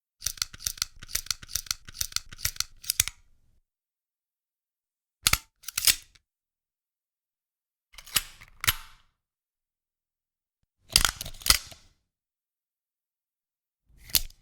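Gun reloading sound effects: a quick run of about a dozen sharp mechanical clicks, then four separate double clicks, each pair about half a second apart, spaced roughly three seconds from one another.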